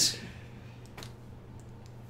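Room tone with a steady low hum and a faint click about a second in, just after the last word of a man's question.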